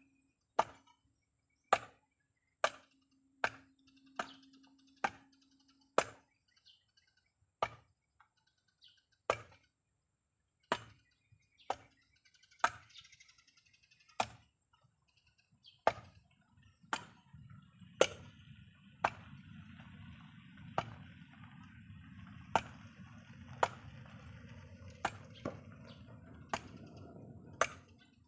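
Repeated sharp chopping strikes, roughly one a second with uneven spacing. A low steady noise comes in about halfway through.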